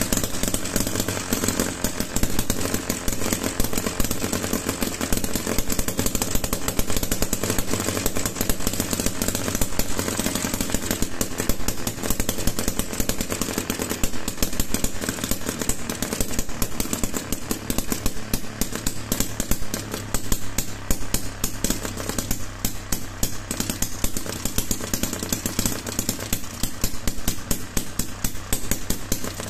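Homemade 12 cc two-stroke model engine running steadily, its rapid firing strokes coming as an even, fast chatter.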